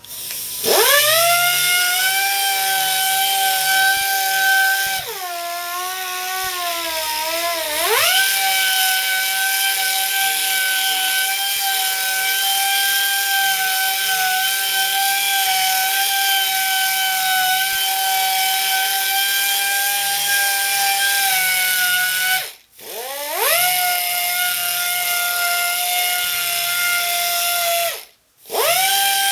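Small pneumatic right-angle polisher with a foam pad buffing polishing compound on fresh paint. It spins up to a steady high-pitched whine, and its pitch sags for a few seconds before settling again. Near the end it is stopped twice and spun back up each time.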